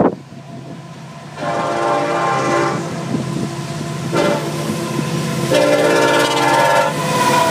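Florida East Coast Railway diesel locomotive sounding its horn for a grade crossing as the train approaches: a blast about a second and a half in, another near four seconds, and a louder one from about five and a half seconds to seven, over the low rumble of the approaching train.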